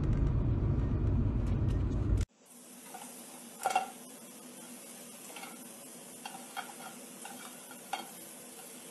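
For about two seconds, a car's low road rumble heard from inside the cabin, which then cuts off abruptly. After it, food sizzles in hot oil in a frying pan, with a few sharp clinks against the pan, the loudest about a second and a half after the cut.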